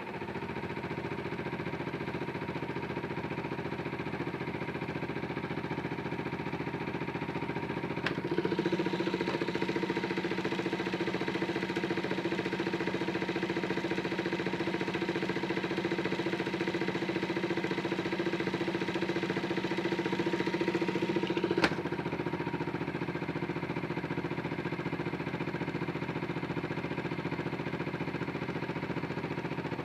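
Washing machine running with a steady motor hum. A sharp click about eight seconds in as the hum gets louder, and another click a little past twenty seconds as it drops back.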